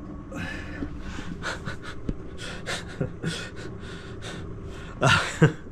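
A man laughing under his breath in short, breathy puffs a few times a second, breaking into two louder bursts of laughter near the end.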